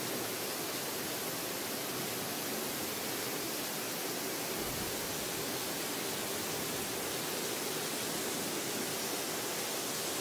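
Heavy rain falling steadily during a thunderstorm: an even, unbroken hiss.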